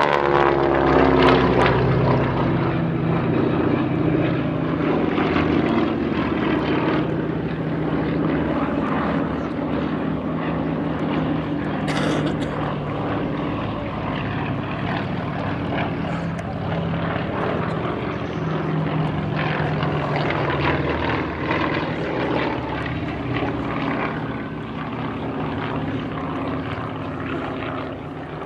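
Formation of radial-engined propeller trainers, Yak-52s and North American Harvards, flying past. The engine drone drops in pitch at the start as they go by, then carries on steadily and slowly fades.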